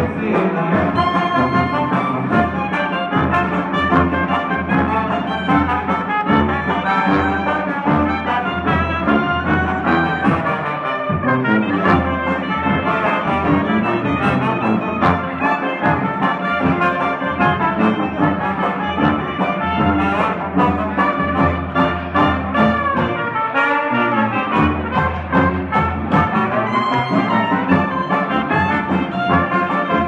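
A live jazz band playing: trumpets and trombone carrying the melody over a sousaphone bass line, with banjo and a bass drum keeping the beat.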